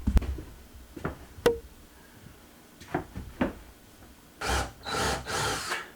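A few light knocks on wood, one with a short ring, then three rough scraping strokes close together near the end.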